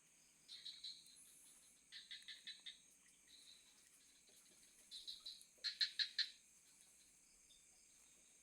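Frogs calling at night in several short, rapid pulsed trills, the loudest about six seconds in, over a steady high-pitched drone of insects.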